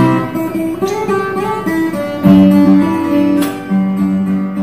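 Short intro music played on guitar, with chords strummed and ringing on.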